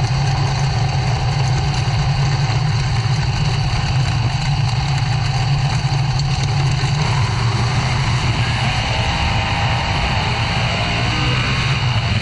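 Winged dirt-track sprint car's engine running steadily at racing speed, heard through a camera mounted on the car with heavy noise from the air rushing past.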